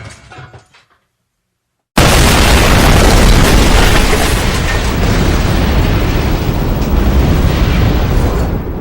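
Explosion sound effect: the tail of one blast dies away into silence, then about two seconds in a second explosion hits suddenly and keeps rumbling with deep, heavy noise, starting to fade near the end.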